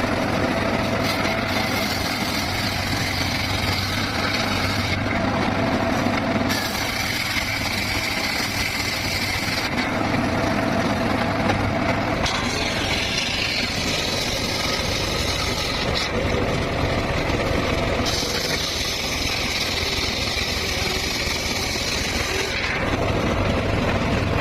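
Circular saw running steadily while its blade cuts teak and mahogany, with the hiss of the cut starting and stopping every few seconds as the wood is fed through and drawn back.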